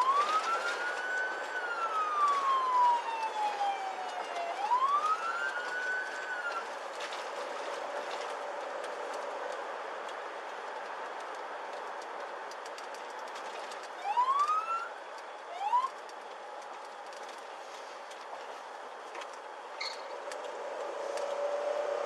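Police car siren heard from inside a moving squad car: one wail that rises, falls slowly and rises again over the first six seconds, then two short rising chirps about fourteen and sixteen seconds in, over steady road noise.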